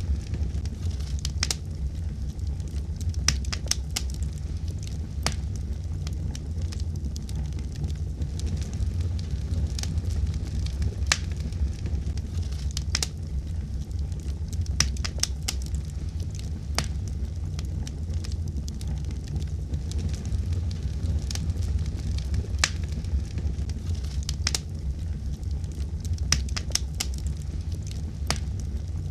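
Fireplace fire crackling: irregular sharp pops and snaps over a steady low rumble of the flames.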